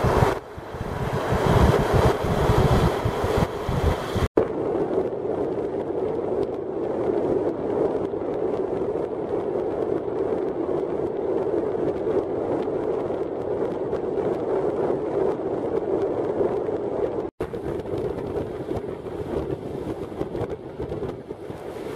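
Road noise from a car driving: a steady, even rumble of tyres and engine, with wind buffeting the microphone during the first few seconds. The sound cuts out abruptly twice, about four seconds in and again about four seconds before the end, then resumes.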